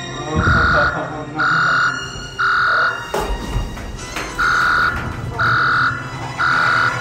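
Electronic alarm beeping about once a second, each beep half a second long: three beeps, a short break, then three more, over a low steady drone. A dull thump about three seconds in.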